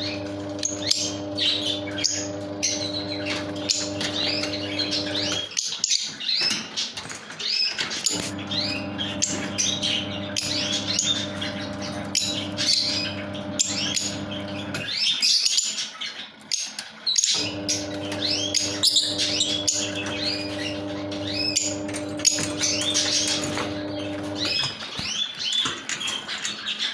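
Lovebirds chattering: a dense, continuous stream of short, high chirps. Under it runs a steady low hum that stops twice for a couple of seconds.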